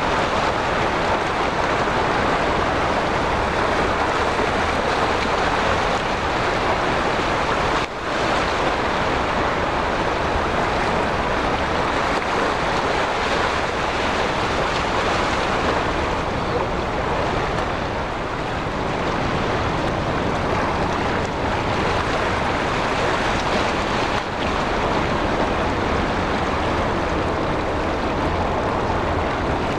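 Steady rush of wind and sea waves at the shoreline, with wind rumbling on the microphone; a brief lull about eight seconds in.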